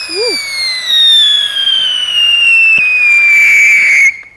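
Cheap ground fountain firework spraying sparks with a loud whistle that falls steadily in pitch and cuts off suddenly near the end.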